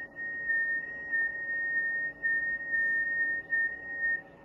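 An FT8 digital-mode signal heard through a ham radio receiver on the 6 m band: a single high whistling tone that steps slightly in pitch. Its level wavers, and the tone stops shortly before the end as the transmission ends.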